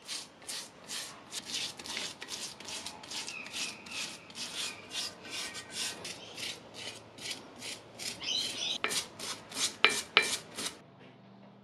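A stiff-bristled hand brush scrubbing back and forth over the wet, paint-covered metal of a bench vice, in steady strokes about three a second. Near the end come a few harder, louder strokes, then the scrubbing stops.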